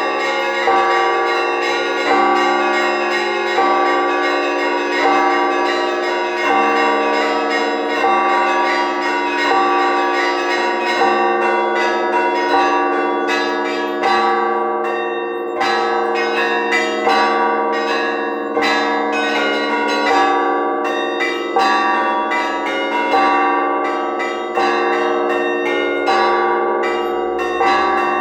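Orthodox church bells rung together in a festive peal before the Divine Liturgy. Many small bells chime rapidly over a heavier bell struck in a steady beat about every second and a half.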